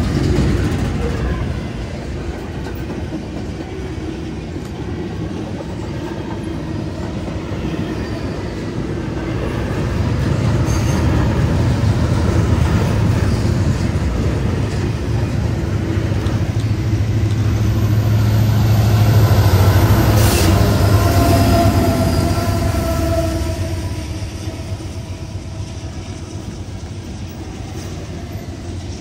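Norfolk Southern intermodal freight train rolling through a grade crossing, a steady rumble of cars and wheels on the rails. The rumble and a deep engine hum swell about ten seconds in, peak around twenty seconds, then ease off.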